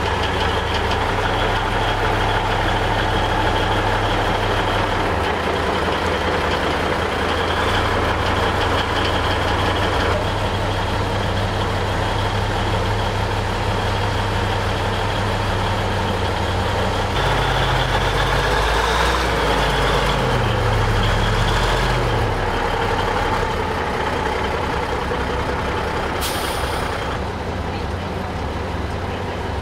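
Diesel engine of a large six-wheel high-water rescue truck running steadily. Its note rises for a few seconds past the middle, and a short sharp air-brake hiss comes near the end.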